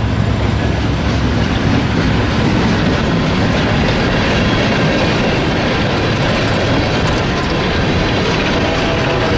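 Freight train passing close by: a locomotive's low engine drone fades in the first second, then a steady rolling rumble and rattle of the cars' wheels on the rails.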